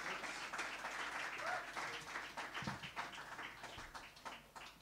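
Small audience applauding, with dense clapping that thins out toward the end.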